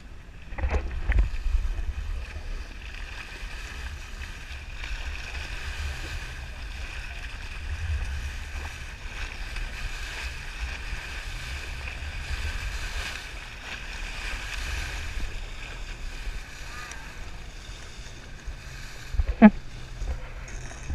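Motorboat under way at sea: a steady engine hum over water rushing past the hull, with wind buffeting the microphone. A brief sharp sound comes near the end.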